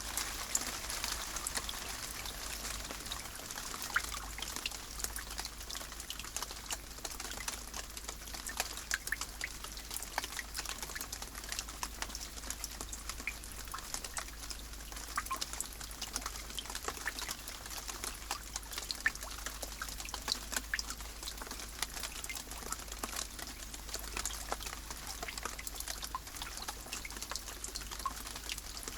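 Steady rain: a constant hiss with many separate drop hits at irregular intervals.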